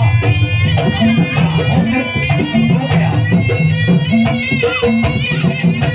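Live traditional Javanese folk music: drums beating steadily under sustained melodic instruments, accompanying a Kucingan dance.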